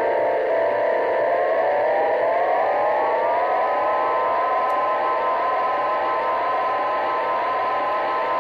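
Synthesizer tones layered with delay echoes, several pitches gliding slowly upward together in a siren-like sweep, with no beat.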